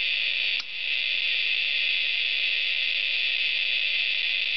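Victoreen 493 Geiger counter's clicks coming so fast that they merge into a steady, high hiss like white noise, with a brief dip about half a second in. This is the very high count rate from the radioactive glucose tracer of a PET scan, with the probe held against the body.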